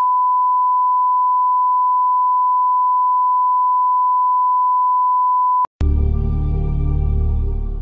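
Steady 1 kHz line-up test tone, one pure unbroken beep that cuts off suddenly about six seconds in. Music then starts with a deep, sustained chord that begins to fade near the end.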